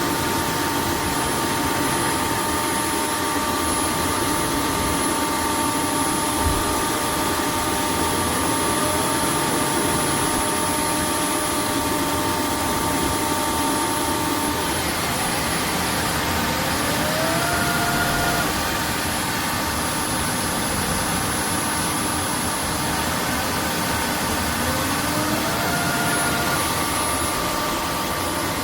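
roborock F25 wet-dry vacuum running its self-cleaning cycle in the base station: the suction motor and roller run steadily with a whirring hum, and a short rising whine comes in a few times as the motor changes speed.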